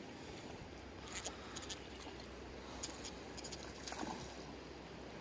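Faint steady rush of a shallow, riffled creek, with a few light clicks and taps over it.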